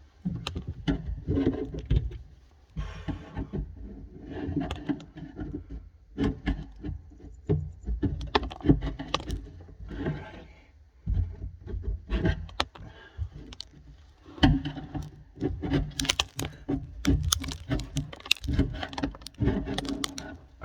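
Irregular scraping, knocks and metallic clinks of hand work at a sink drain, cleaning off old residue left from a previous garbage disposal.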